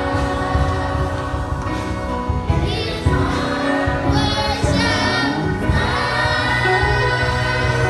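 A choir singing with instrumental accompaniment and a steady bass beat.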